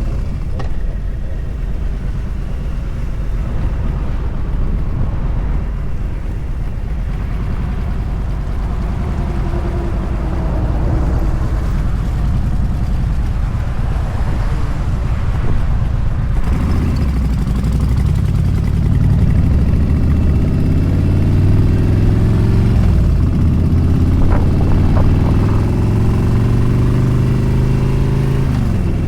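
Motorcycle engine running at road speed, with wind noise on the microphone. In the last third the engine grows louder and its pitch climbs steadily as it accelerates.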